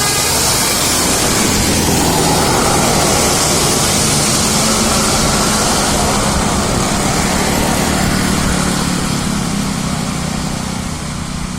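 A bus's engine running with road and tyre noise, a steady low hum under a broad hiss that fades away over the last couple of seconds.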